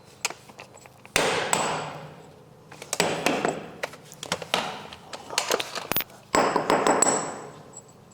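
Metal clanks and knocks of tools working on engine parts: three louder noisy clatters, each fading over about a second, with lighter taps and clicks between them.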